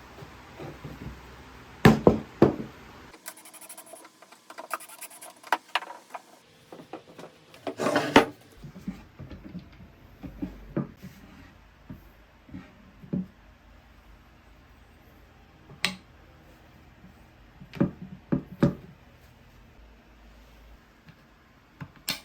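Wooden workpieces being handled: scattered knocks and taps of wood on wood or on the bench, with a few short rubbing or rasping scrapes, the loudest about two and eight seconds in.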